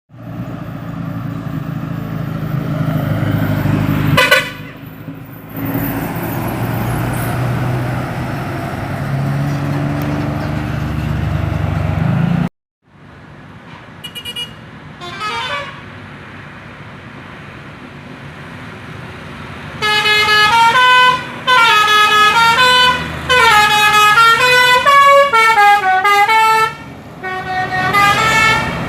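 A vehicle's engine running for the first part, then after a sudden cut a few brief sliding horn tones, and from about two-thirds of the way in an Indonesian 'telolet basuri' multi-tone bus horn playing a loud tune of short notes that step up and down in pitch.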